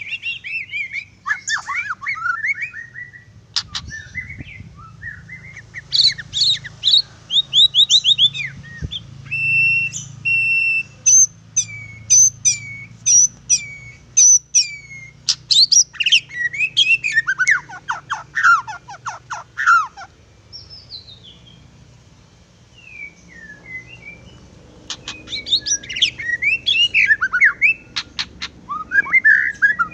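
White-rumped shama (murai batu) singing a long, varied song of clear sweeping whistles, rapid trills and sharp clicking notes, with a short lull about two-thirds of the way through.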